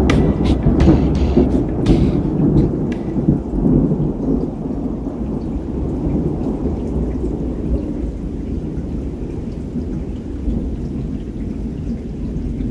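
Thunderstorm: heavy rain and wind with a long, low rumble that slowly dies down, and sharp taps of drops in the first few seconds.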